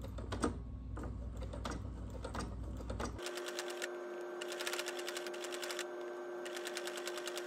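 Electric sewing machine stitching. First come slow, uneven needle clicks, then after about three seconds a steady motor whine with fast needle ticking, in two runs with a short pause between them.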